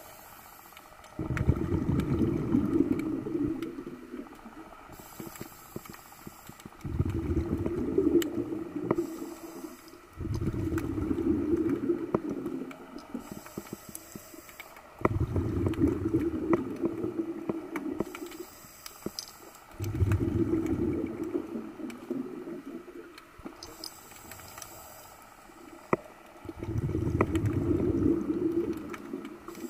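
A scuba diver's breathing through a regulator, heard underwater. A hiss marks each inhale, and a rumbling burst of exhaled bubbles follows about every four to five seconds, six exhales in all. Faint scattered clicks run underneath.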